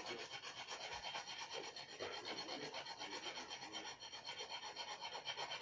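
A dried, caked lump of ground coffee rubbed back and forth against a rasp, a steady scraping at about five quick strokes a second.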